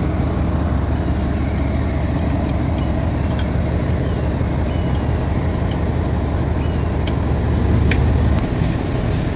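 Diesel locomotive engine idling as a steady low rumble, with a few faint clicks over it.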